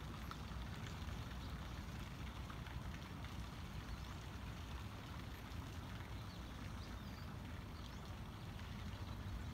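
Faint outdoor ambience: a steady low rumble with a few faint, short, high chirps.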